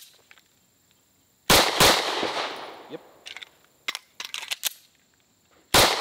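Bul Armory EDC 4.25 9 mm pistol firing two quick shots, each ringing out over the range. A run of small clicks follows, then two more quick shots near the end. The shots are the last rounds of each magazine in a test that the slide locks back on empty.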